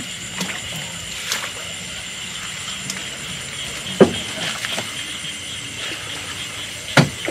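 Water sloshing and splashing around a small boat. Two sharp knocks or splashes land about three seconds apart, over a steady high-pitched drone.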